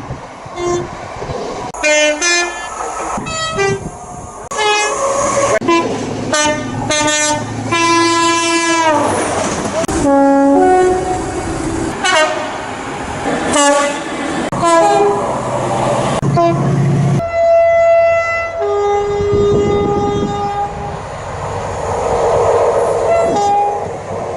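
A rapid run of British train horns, one short blast after another from different trains, some in two tones. About eight seconds in, one horn slides down in pitch; later comes a longer two-tone blast, high then low, followed by a few more short horns.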